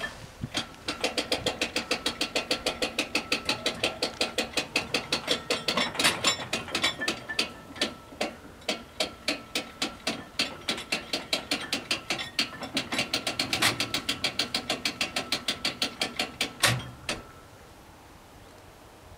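Italian level-crossing bell ringing in rapid, even strokes, about five a second, as the barrier booms rise after the train has gone. It stops about seventeen seconds in with a sharp knock as the barriers come to rest upright.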